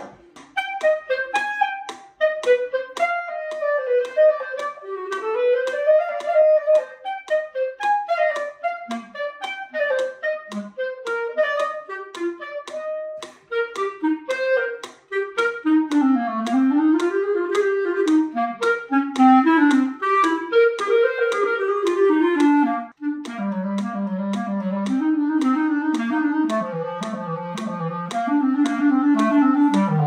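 Solo clarinet playing quick runs of short notes that sweep up and down. About 23 seconds in there is a brief break, and it moves to slower, longer notes in its low register.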